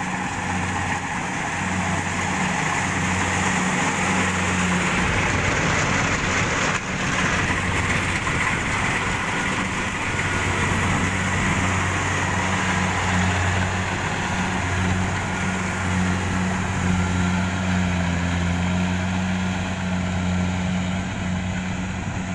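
Rice combine harvester running steadily as it cuts, a continuous engine drone with a low hum and a rushing noise from the cutting and threshing.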